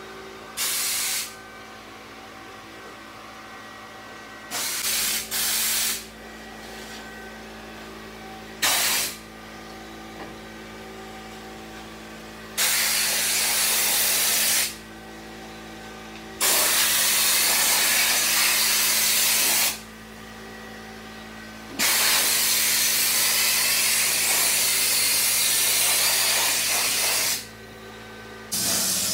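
Compressed-air spray gun spraying paint: a loud hiss that starts and stops with the trigger. It comes in a few short bursts at first, then in longer passes of several seconds each, over a steady low hum.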